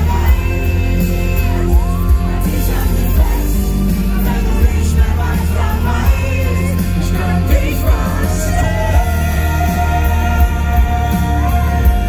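Pop-rock song played live: a singer over a band with a steady drum beat and heavy bass.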